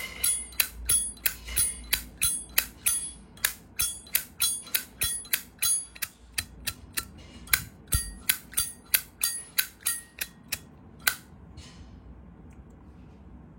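Zippo lighter lid flicked open and snapped shut over and over, about three sharp metallic clicks a second, each with a short bell-like ring, stopping about eleven seconds in. The ring is the clear 'bell sound' that marks a good Zippo lid and hinge.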